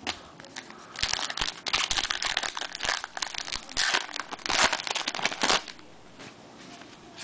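Crinkling of a trading-card pack wrapper being torn open and handled: a dense, crackly run of noise from about a second in until shortly before the end.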